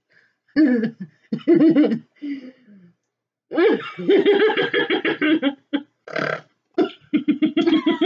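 Women laughing hard in loud fits, ending in a run of quick pulsing laughs.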